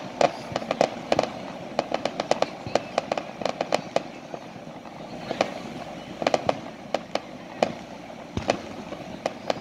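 Aerial fireworks going off in a rapid run of sharp bangs and crackling pops. They thin out for a couple of seconds around the middle, then pick up again.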